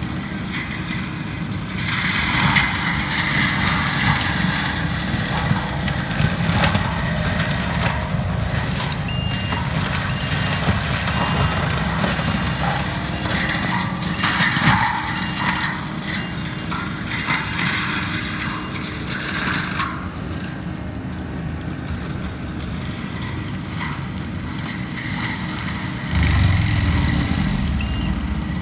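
Kubota compact track loader's diesel engine running at high throttle as its forestry mulcher head grinds through brush, the shredding noise rising and falling. A reversing alarm beeps through the middle, and near the end the machine gets louder and deeper as it bears into a tree.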